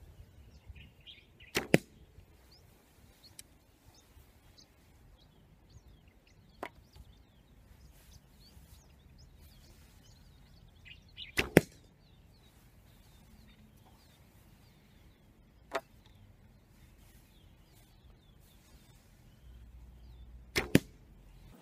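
SAS Tactical Survival Bow shot three times, about nine seconds apart, with its limb pivot pin screws removed and no string silencers. Each shot is a sharp snap of the string followed a split second later by a second knock, with a few faint clicks between shots.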